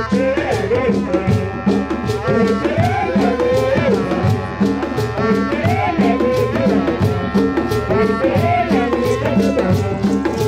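Live traditional drumming on hand-played barrel drums with shaken rattles, in a brisk steady rhythm. A wind instrument plays held, stepping notes above the drums.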